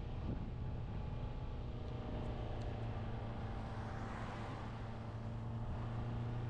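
A car's engine and road noise: a steady low hum climbing a mountain road, with a brief rushing hiss that swells and fades about four seconds in.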